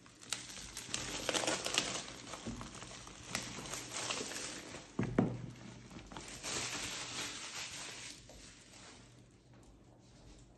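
Thin plastic shrink wrap crinkling and rustling as it is handled, with scattered light clicks and a soft thump about five seconds in. It dies away after about eight seconds.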